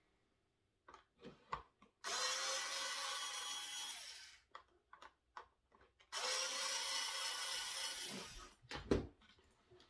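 Small cordless electric screwdriver backing out two small screws from a plastic housing: its motor whirs in two runs of about two seconds each, with light clicks and knocks of handling between.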